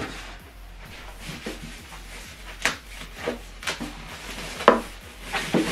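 Plastic packaging bag being pulled off a wrapped subwoofer: a handful of short rustles and crinkles, starting about two and a half seconds in after a quiet stretch.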